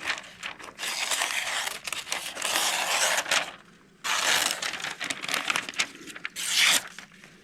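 A freshly sharpened pocket knife edge slicing through magazine paper in about four separate strokes, each a dry hissing rip. The edge is newly honed and stropped, cutting effortlessly.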